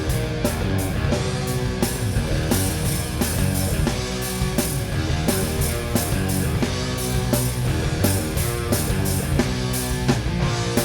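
Four-piece rock band playing live: electric guitars, bass and drum kit in an instrumental opening, with no singing.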